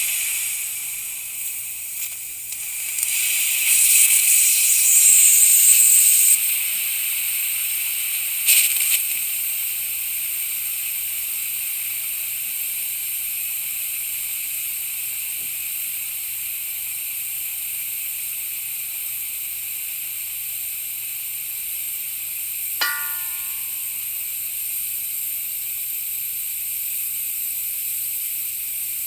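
Gas hissing out of a leaking tank: a steady high hiss that swells louder from about three to six seconds in, with a short, sharp spurt near eight seconds. A brief ringing tick sounds about twenty-three seconds in.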